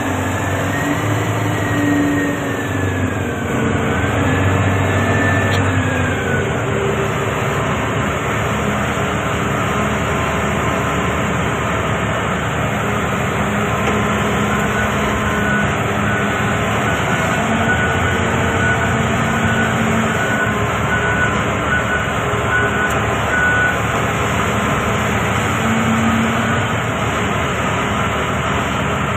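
Komatsu HD465-7 rigid dump truck's diesel engine running as the truck slows to a crawl, its speed falling from about 1,300 rpm to an idle near 750 rpm over the first several seconds, then running steadily. A whine glides down and back up in pitch during the first six seconds.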